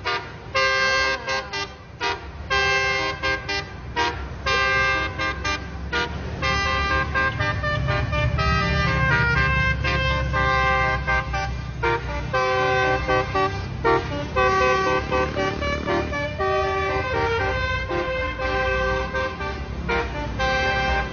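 Bus 'telolet basuri' multi-tone musical horn playing a fast tune of short, chopped notes, over the low running of a bus engine.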